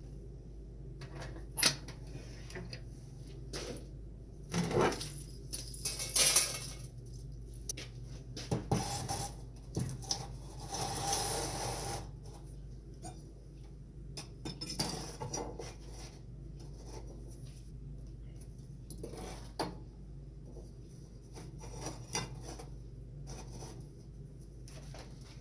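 Small metal objects clinking and clattering as they are handled, with scattered sharp knocks and a couple of short rustling stretches, over a steady low hum.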